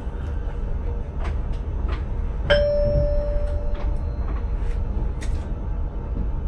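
A single bell-like ding from a chime in the train driver's cab, struck about two and a half seconds in and ringing out for about a second, over the cab's steady low hum. Several light clicks come before and after it.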